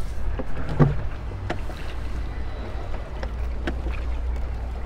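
Wooden rowing boat being rowed: the oars knock now and then in their rowlocks over a steady low rumble of wind on the microphone.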